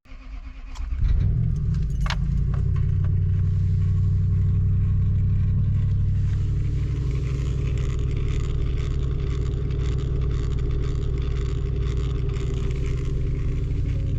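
A vehicle engine starts about a second in and then runs steadily, with a light metallic jingle of keys over it.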